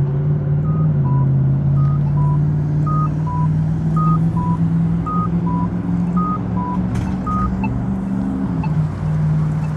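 A large vehicle's engine running close by, steady and loud. Over it, a two-tone electronic beep alternates high and low, about thirteen short beeps, stopping after about seven seconds.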